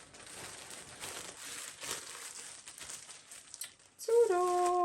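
Packaging crinkling and rustling as a parcel is opened by hand. Near the end comes a held hummed note about a second long, the loudest sound.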